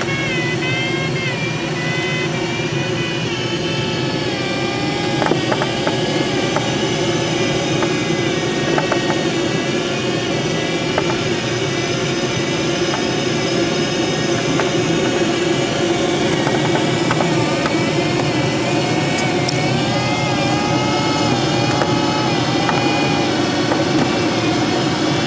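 Steady rush of air past the canopy of a Schleicher ASW-15b sailplane in gliding flight, with a thin tone that wavers slowly up and down in pitch, higher at first and lower in the second half.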